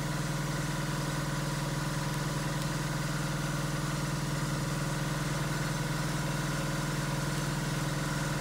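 Apollo marine diesel generator set running steadily with an even hum, heard from inside the boat's cabin, still running without load.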